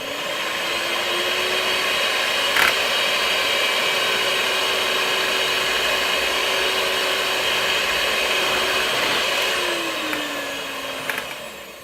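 Electric whisk (hand mixer) running steadily while beating eggs and milk in a bowl, its motor whine falling away about ten seconds in as it is switched off and spins down.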